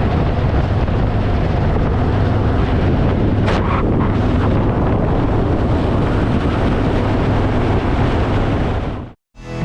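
Steady rush of wind on the microphone over a low, even engine drone, cutting off abruptly near the end.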